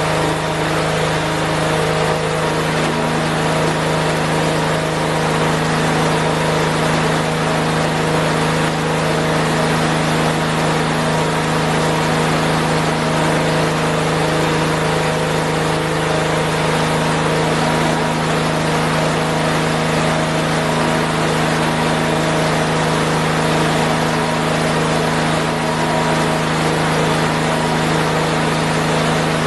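John Deere 112 garden tractor's engine running at a steady speed, with an unchanging hum and no revving.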